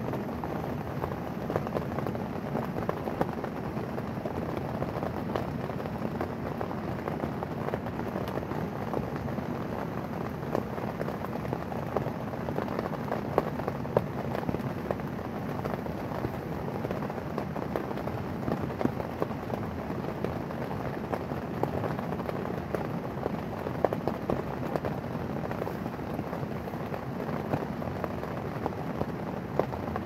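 Heavy rain falling steadily on the tent, heard from inside: a dense, even patter with now and then a louder drop.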